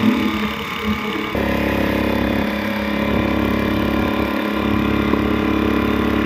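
Small fishing boat's outboard motor running steadily under way, with water noise from the hull and wake. About a second and a half in, the engine sound changes abruptly to a fuller, even run.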